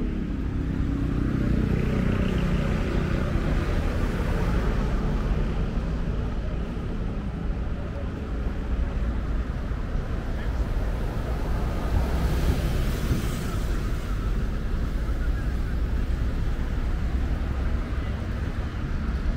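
City street ambience: a steady rumble of traffic, with a vehicle passing in the first few seconds and another about twelve seconds in, and faint voices of people nearby.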